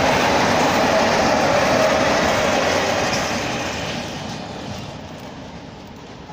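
Freight train of open-top wagons rolling past, its wheels rumbling steadily on the rails. After about three and a half seconds the last wagon has gone by and the rumble fades away as the train moves off.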